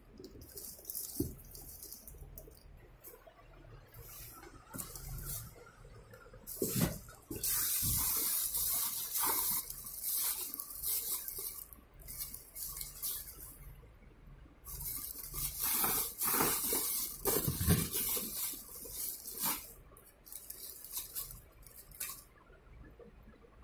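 Plastic bags crinkling and rustling as hands rummage through bagged fibre-optic patch cords in cardboard boxes, in uneven bursts with two long loud stretches in the middle.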